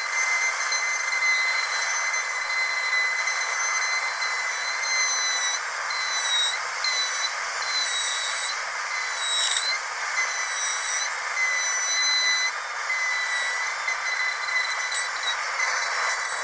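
Dentist's drill whining steadily at a high pitch over a hiss. The whine dips briefly in pitch about six and a half and nine and a half seconds in.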